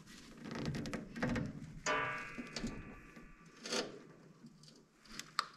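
Rusty metal lever-and-spring mechanism of old electrical switchgear being handled with a gloved hand: small clicks and rattles, then about two seconds in a sharp metallic clank followed by a ringing note lasting about a second, and a couple more knocks near the end.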